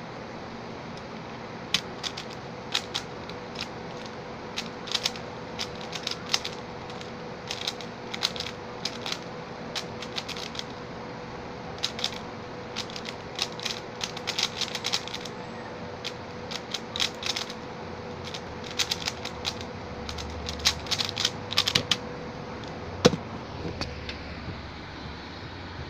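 Stickerless 3x3 speedcube (Xin Lexin) being solved fast by hand: quick clusters of plastic clicks as the layers are turned, with short pauses between bursts. Near the end, one louder knock.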